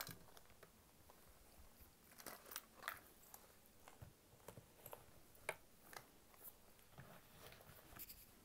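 Faint, scattered soft taps, clicks and rustles of hands handling a leather handbag as a leather wallet is slid into its back compartment.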